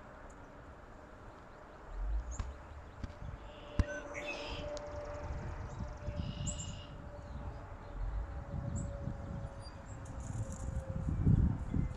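Outdoor ambience: gusts of wind rumbling on the microphone, strongest near the end, with a few faint, high bird chirps and a faint steady hum underneath. A single sharp click comes about four seconds in.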